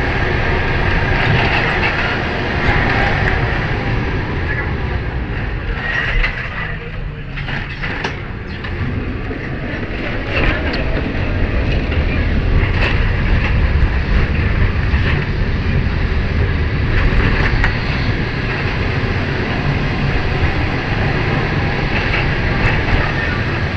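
Lisbon Tram 28 streetcar running on its rails, a steady rumble and rattle of wheels and car body with scattered clicks, easing off briefly about six seconds in.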